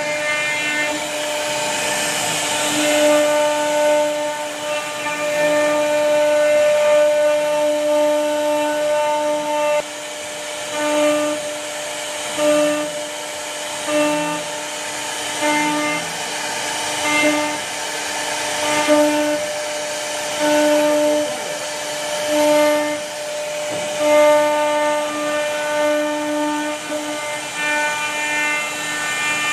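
CNC router spindle running at a steady high pitch while its bit cuts a scroll pattern into a wooden door panel. The whine swells and eases irregularly every second or two as the cut loads the bit, over the hiss of the wood being cut.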